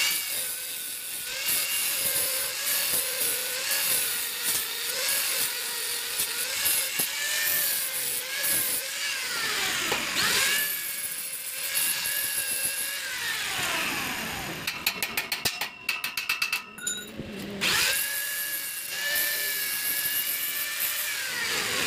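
Handheld angle grinder with a flap disc grinding stainless steel tube joints, its motor whining steadily; the pitch dips and climbs back a few times. About fifteen seconds in, a brief stretch of rapid clicking.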